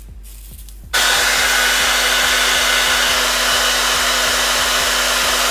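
Conair 1875 hand-held hair dryer switched on about a second in, blowing steadily with a hum, drying wet lace-wig glue until it turns clear.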